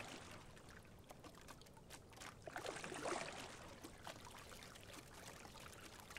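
Faint splash and swish of a single scull's oars working the water, one stroke swelling up about two and a half seconds in, the next coming roughly three seconds after the one before, over a low steady hiss.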